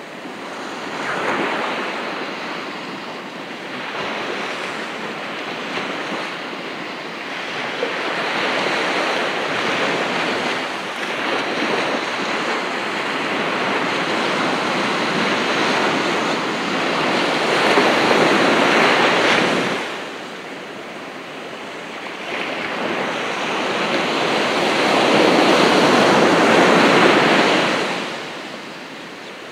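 Ocean surf breaking and washing up a beach: several waves in turn, each building over a few seconds and then dropping away abruptly.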